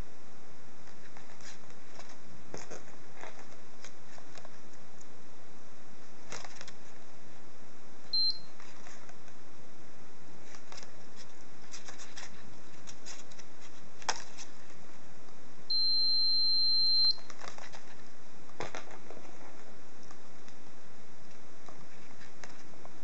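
High-pitched electronic beeps: a short one about eight seconds in and a longer one of about a second and a half later on, over a steady hiss with a few faint clicks.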